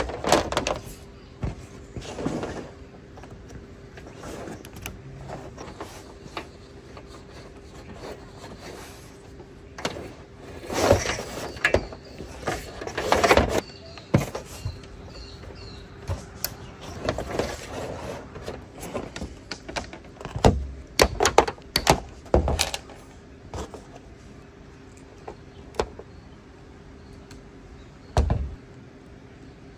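Handling noises from wiring solar cables on a corrugated metal caravan roof: cables and plastic MC4 connectors being moved, rubbed and clicked, in scattered bursts of scrapes and knocks. A faint steady hum runs underneath.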